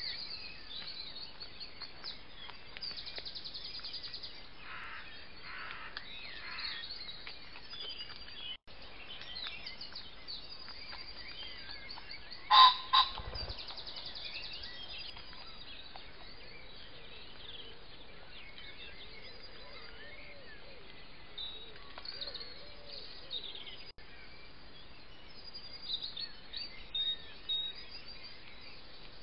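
Birds singing and chirping in woodland, with a loud, harsh two-note bird call about twelve seconds in.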